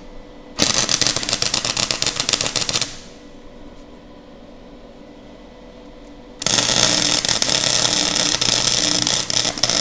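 Nagano MIG 130 gasless flux-core welder's arc crackling in two runs: about two seconds starting half a second in, then again from about six and a half seconds on, with a low hum under the second run. The machine is on its maximum 1 current setting with slow wire feed, which the welder shows burns through the plate.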